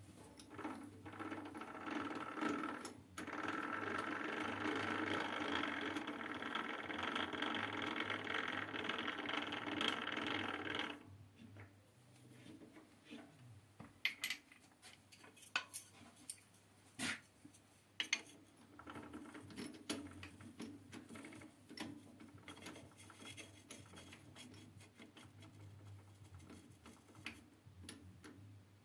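CJM280 lathe running under cut, a dense steady machining noise that stops abruptly about eleven seconds in. A few sharp metallic clicks and knocks follow, then the lathe runs again more quietly through the second half.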